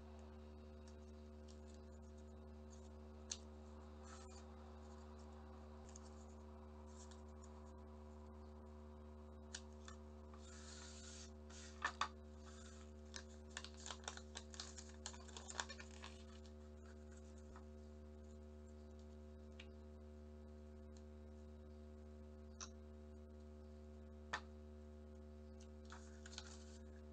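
Origami paper being handled and folded: scattered soft crackles and clicks, busier for several seconds about halfway through, over a steady low electrical hum.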